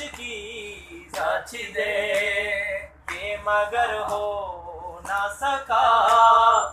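A man singing a noha, an unaccompanied Shia lament, in three drawn-out phrases with short breaks between them.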